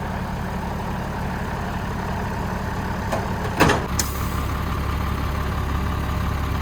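Diesel delivery truck engine idling steadily, with a brief sharp noise about three and a half seconds in, after which the engine runs louder.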